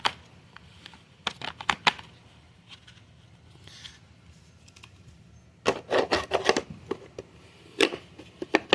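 Vacuum cleaner parts being handled, giving irregular clicks and knocks: a few about a second in, a dense cluster around six seconds, and a couple more near the end.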